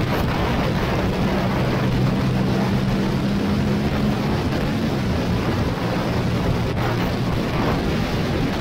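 Motorcycle engine running at a steady road speed under a heavy rush of wind on the microphone and tyre noise, its low, even note easing off about halfway through.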